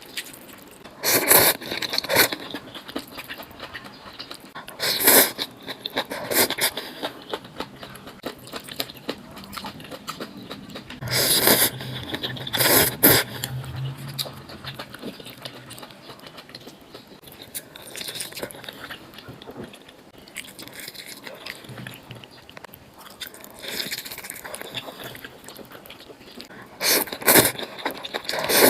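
A person eating noodles: loud, short noisy bursts every few seconds, in a pair about 27 seconds in, with quieter chewing between them.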